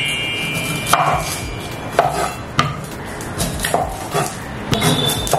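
Kitchen knife rough-chopping an onion on a cutting board: about seven separate, unevenly spaced strikes.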